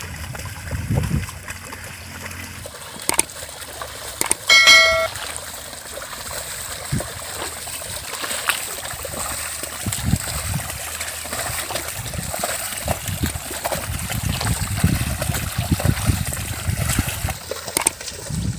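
Muddy water sloshing and splashing as bullocks drag a plough leveller through a flooded paddy field, in uneven surges. A brief loud high-pitched tone cuts in about four and a half seconds in.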